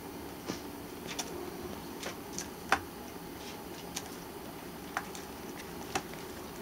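Kitten's claws pawing and scratching at a torn cushion and a crumpled wrapper: about eight irregular sharp clicks and scratches, the loudest about three seconds in.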